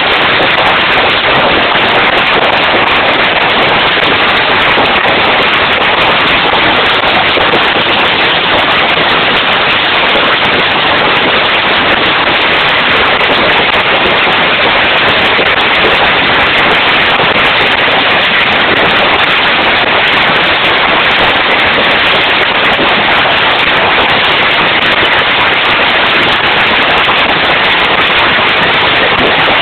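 Heavy hail coming down, a dense, steady clatter of countless hailstone impacts.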